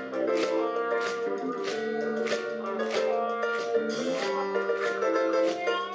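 Live band playing the instrumental introduction of a song: sustained chords over a steady beat.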